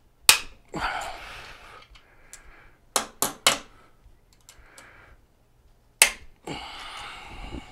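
Sharp metal clicks as tongue-and-groove pliers grip and turn an Allen key on a tight Allen bolt: one about a quarter second in, three quick ones around three seconds in and one at six seconds, the first and last each followed by about a second of rough scraping noise.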